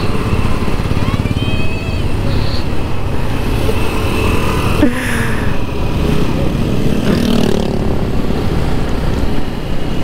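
Motorcycle engine running steadily at road speed, heard from the rider's own bike, with other motorcycles and scooters close ahead. A few brief higher tones and a sharp click about halfway through rise over the rumble.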